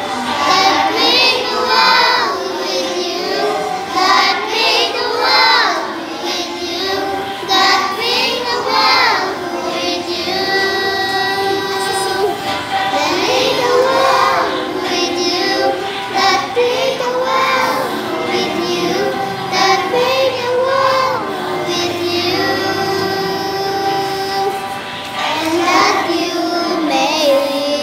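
A group of young children singing a song together, in phrases that carry on without a break.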